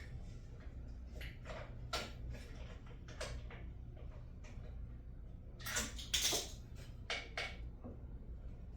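Scattered small metal clicks and clinks of bolts and a hand tool being handled while a bolt is fitted back into a lawnmower, with a louder cluster of rattling about six seconds in, over a low steady hum.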